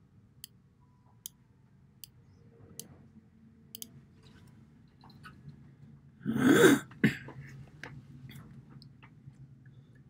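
A person clears their throat with one harsh cough about six seconds in, the loudest sound by far, followed by a short second catch. Before it come a few faint, sharp computer-mouse clicks spaced about a second apart.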